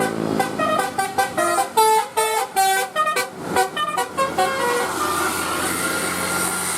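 Bus telolet multi-tone horn playing a quick tune of short notes that jump between pitches for about five seconds. After that the bus engine runs with a steady hum.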